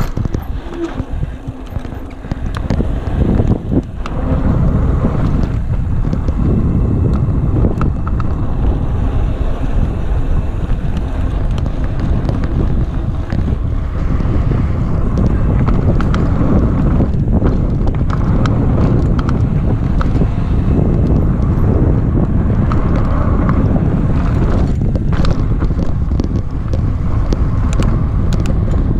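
Mountain bike riding fast over a dirt singletrack: steady wind rushing over the camera microphone and tyre rumble, with frequent short clatters as the bike rattles over bumps.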